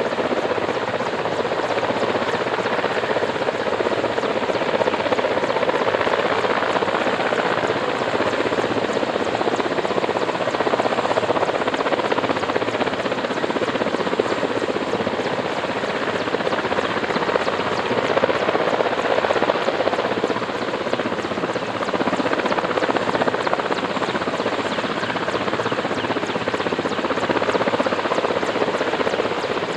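Helicopter rotor running steadily, a constant chopping drone that does not let up.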